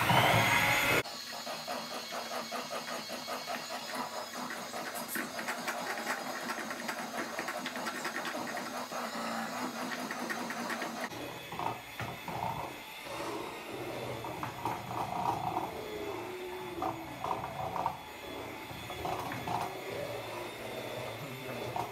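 Electric hand mixer running, its beaters whirring through cake batter in a stainless steel bowl with a steady, fast rattle.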